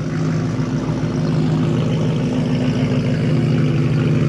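A car engine running at a steady, even speed, with a low, unchanging hum and no revving.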